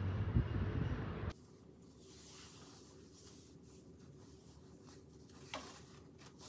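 Outdoor ambient noise with a low rumble that cuts off suddenly just over a second in, giving way to quiet room tone with faint fabric rustling as an apron is tied, and one short soft click near the end.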